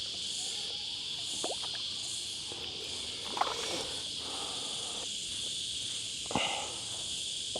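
Cicadas chorusing in the trees: a steady, shrill, pulsing drone. A few brief knocks come through it, about a second and a half in, halfway and near the end.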